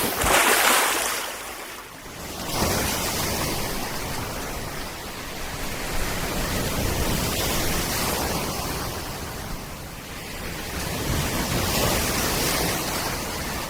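Rough sea surf breaking and washing on the beach in high wind: a loud rushing noise that swells and eases every few seconds as waves come in.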